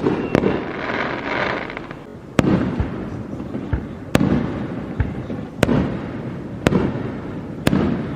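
A series of sharp pops, about one every second or so, each followed by a short low rumble.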